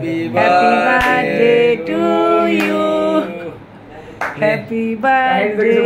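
Several people singing a birthday song together without instruments, in long held notes, with a short break about three and a half seconds in.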